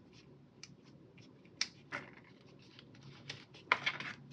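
Hands working with paper stickers and planner sheets: a string of light clicks and rustles, with two sharp snaps about a second and a half in and a louder run of rustling clicks near the end.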